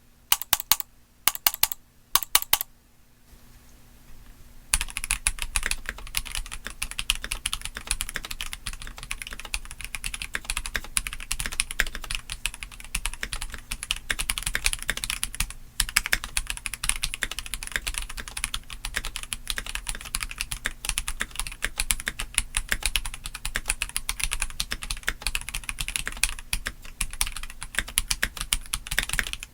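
Stock, gasket-mounted Keychron C3 Pro tenkeyless mechanical keyboard being typed on. A few separate sharp keystrokes come first, then after a short pause steady, fast typing with one brief break about halfway through.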